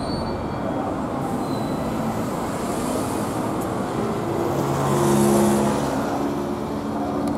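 City street traffic: a steady rumble of road noise, with a passing vehicle's engine hum coming up about four and a half seconds in and loudest a second later.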